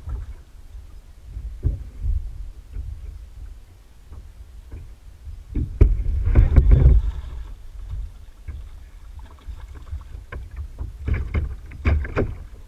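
Kayak on a river: scattered knocks and water noise around the hull over a low wind rumble on the microphone, with a louder noisy stretch about six seconds in and another shortly before the end.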